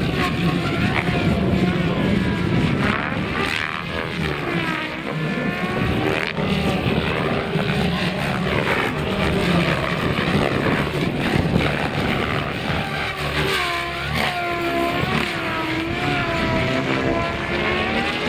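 Electric RC 3D helicopters flying aerobatics: the whine of their motors and main rotors swings up and down in pitch as they throw the models around.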